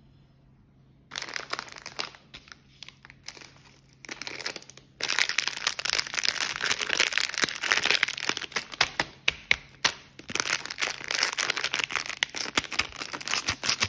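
Plastic wrapper of a Chupa Chups lollipop crinkling as fingers work it open. The crackle starts about a second in, comes in short bouts, then goes on almost without break from about five seconds in.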